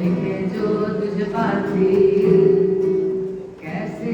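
Two young voices singing a song in unison, holding one long note from about two seconds in until past three seconds.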